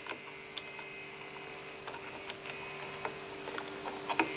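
A few light metallic clicks and taps of a steel feeler gauge blade being pushed into the gap beside a Puch Maxi E50 crankshaft to measure its end play, over a faint steady hum.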